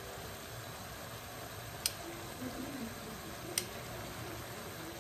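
Two sharp clinks about a second and a half apart, as serving tongs and a fork knock against a porcelain plate while spaghetti is dished up from a frying pan, over a steady low hiss.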